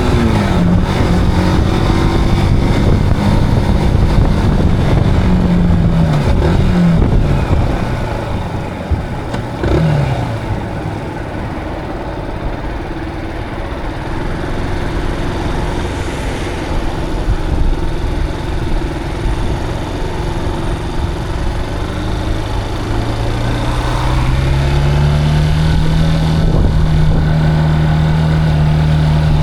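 Zontes cruiser motorcycle engine heard while riding. The engine note drops several times in the first ten seconds, runs lower and quieter for a stretch, then rises about three quarters of the way through and holds a steady pitch.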